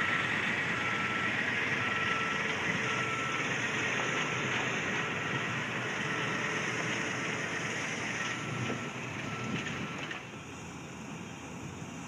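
Heavy construction machinery running, with a diesel engine's steady noise and a backup alarm beeping about once a second; the beeping stops and the engine noise drops near the end.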